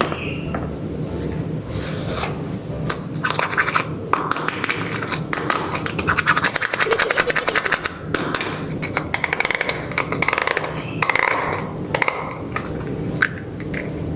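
Small toys handled and tapped together, with scattered taps and clicks and a dense run of rapid clicking in the middle.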